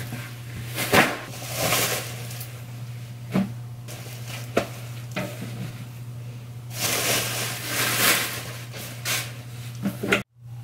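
Clothes rustling and soft knocks as folded jeans are handled and stacked on closet shelves, in irregular bursts over a steady low hum. The sound cuts out briefly near the end.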